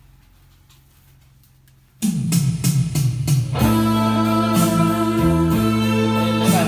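Music from an audio CD played back on a home CD player through speakers: a quiet gap of about two seconds while the player cues the next track, then a song starts abruptly about two seconds in and plays on.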